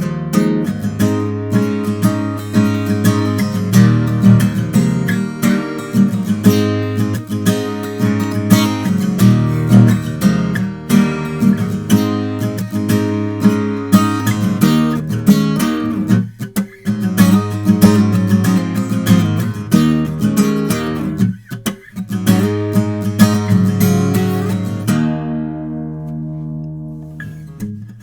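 Martin 00-28 Modern Deluxe steel-string acoustic guitar being strummed and picked, with two brief pauses. Near the end a chord is left to ring out and fade before the playing picks up again.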